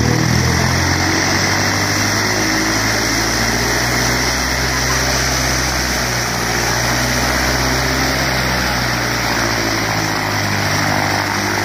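Single-engine Cessna's piston engine and propeller running steadily at low taxi power as the plane taxis in.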